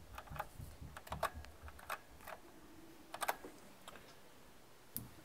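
Faint computer keyboard keystrokes: irregular single taps through the first few seconds, a quick pair about three seconds in, and one last tap near the end.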